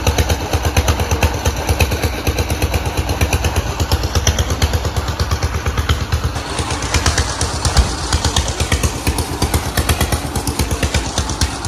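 A small engine running steadily close by, with a fast, even beat.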